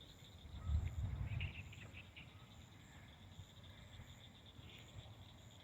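Faint, steady insect chirring with a few faint chirps, and a brief low rumble about a second in.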